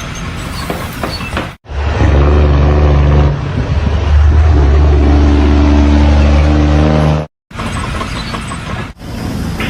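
A large engine running steadily with a low hum, in short clips that cut off abruptly about a second and a half in and again near the end.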